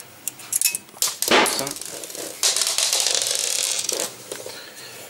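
Handling noise of small metal lock parts: light clicks and clinks of screws and a bracket against the bike frame, a louder scrape about a second and a half in, then about a second and a half of rustling.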